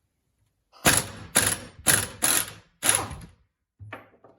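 Impact wrench hammering in five short bursts, about half a second apart, as it breaks loose and spins off the nut on a hydraulic cylinder's rod.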